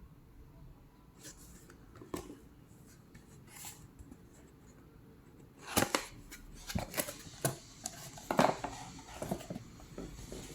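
Packaging and small items being handled: a few scattered light clicks, then from about six seconds in a busy run of clicks, taps and rustles.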